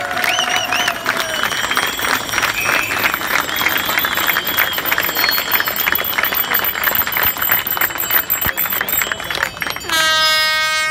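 A crowd applauding and cheering, dense clapping with high sliding calls over it. Near the end a loud horn blast sounds for about a second.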